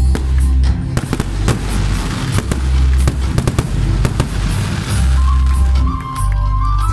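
Aerial fireworks bursting and crackling in a fast run of sharp cracks and pops, densest in the first few seconds. Loud music with a heavy bass plays underneath.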